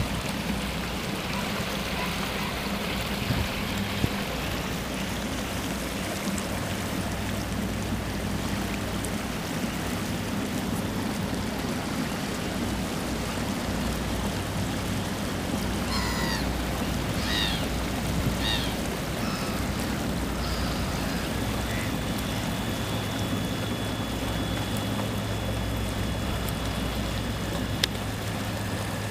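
Steady low hum of the K-13 motorboat's engine at slow harbour speed, with water washing along the hull.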